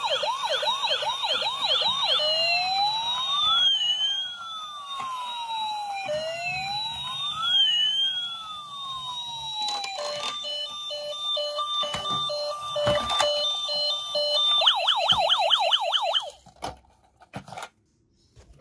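Toy ambulance's electronic siren cycling through its patterns: a fast warble, then two slow rising-and-falling wails, then a high-low two-tone, then the fast warble again. It cuts off about two seconds before the end.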